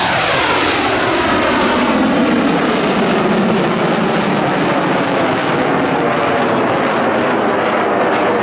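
Eurofighter Typhoon's twin jet engines heard as a loud, steady roar as the fighter flies past, the pitch sweeping downward over the first few seconds as it moves away.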